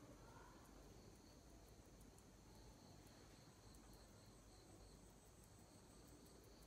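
Near silence: faint room tone with a faint, high, pulsing chirp that comes and goes.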